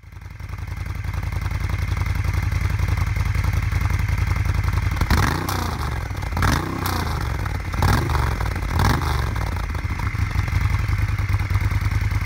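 Moto Guzzi Griso's transverse V-twin idling with an even low beat, revved in about four quick throttle blips around the middle.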